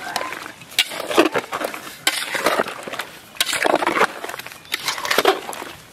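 Raw hilsa fish pieces being mixed by hand with mustard paste and mustard oil in a large metal pot: wet squelching and slapping in irregular bursts, with sharp clicks and scrapes of a metal spoon against the pot.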